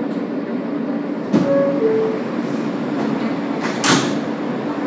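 Inside an R143 subway car, the car's steady electrical hum runs throughout. About a second in there is a knock, then the two-note descending door chime sounds. Near the end comes a brief loud hiss.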